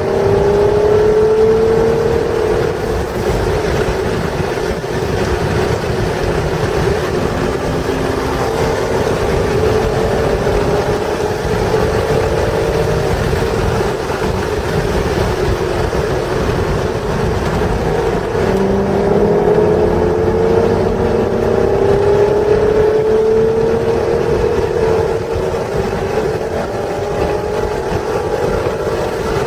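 1996 Acura NSX's stock 3.0-litre V6 running hard on track, its pitch climbing slowly under acceleration early on and again in a long pull from about eighteen seconds in, over steady road and wind noise.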